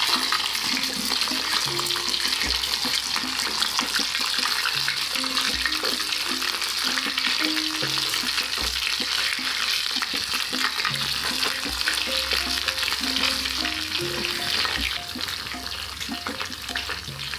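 Smashed unripe plantain pieces deep-frying in hot oil for their second fry, with a dense, steady sizzle and crackle that eases a little near the end.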